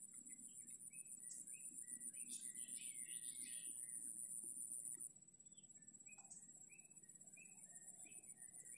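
Faint outdoor ambience of birds chirping in short, repeated calls, over a steady high-pitched buzz that cuts off about five seconds in.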